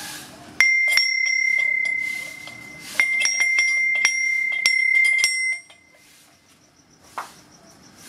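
Small metal bell hanging from the eaves, struck repeatedly: about seven clanging strikes in two bursts, each ringing on one high, clear tone that dies away about five and a half seconds in.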